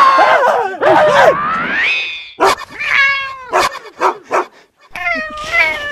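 A string of high-pitched, meow-like wailing cries that rise and fall in pitch, one gliding upward about a second and a half in, then several short falling cries.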